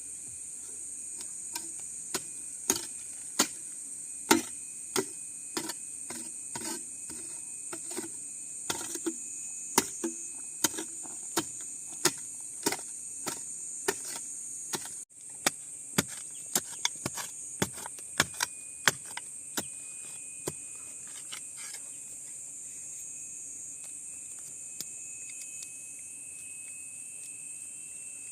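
Steady high-pitched insect chorus, with a run of sharp, irregular knocks about once a second that thin out after about twenty seconds.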